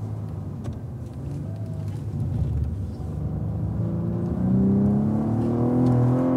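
Cadillac ATS-V's twin-turbo V6 engine: running lower through the first half as the car brakes and shifts down from fourth to second gear, then rising steadily in pitch and getting louder as it accelerates hard in second gear from about four seconds in.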